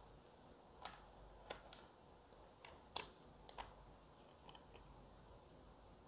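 A handful of faint, sharp clicks and light taps from camera gear being handled and put away. The sharpest click comes about three seconds in.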